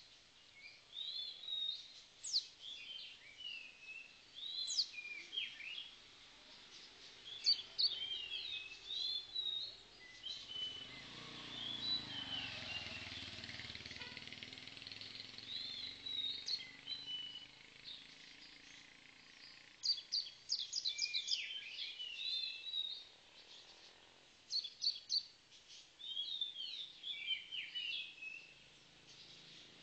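Caged songbird singing in short bursts of quick, high chirping notes that sweep up and down, with pauses between phrases. A broad swell of duller background noise rises and fades in the middle.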